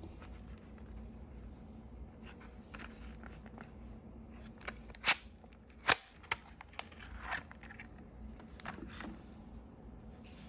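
Small handling noises: light scrapes and rustles with scattered clicks, and two sharp clicks about five and six seconds in followed by a few smaller ones, over a low steady hum.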